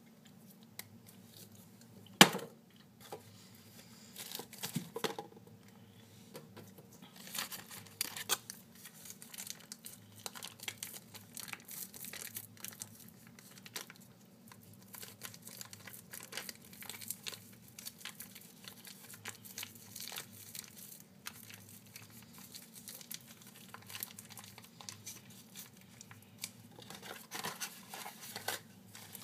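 Crinkly plastic wrapper crumpled and crinkled close to the microphone, a dense crackle of small rustles that keeps going, with one sharp tap about two seconds in.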